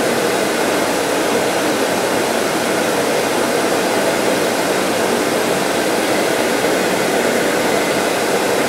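Bench lathe spinning a buff loaded with white polishing compound, with a ring held against it, under a running dust-collector hood: a steady, even rushing noise.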